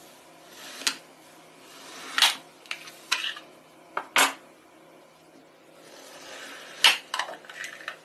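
Felt-tip marker scratching over paper in short colouring strokes, with several sharp taps and clicks, the loudest about two, four and seven seconds in.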